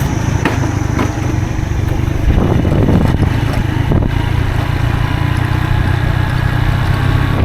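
Moped running steadily on the move, with wind rumbling heavily on the microphone.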